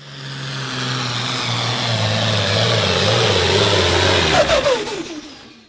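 Farm tractor engine running loud and steady as it drives by, swelling in over the first second; near the end its note drops in pitch and fades away.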